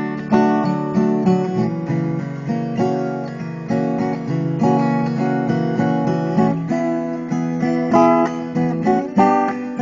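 Acoustic guitar strummed in a steady rhythm, chords struck about every half second or so.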